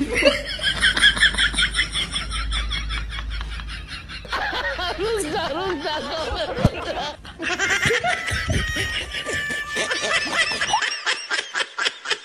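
Laughter in long runs of quick, repeated bursts.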